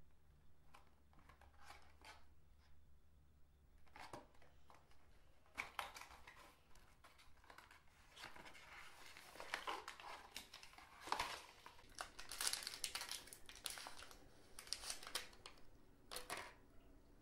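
Faint paper and cardboard rustling and crinkling as a small cardboard box is opened and its folded paper leaflet pulled out and unfolded. The rustles are scattered at first and become busier and louder from about a third of the way in.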